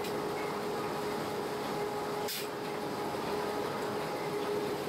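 Running noise inside the driver's cab of a historic SBB electric train climbing a mountain grade: a steady rumble and hiss with a steady whine through it. A single short, sharp click a little over two seconds in.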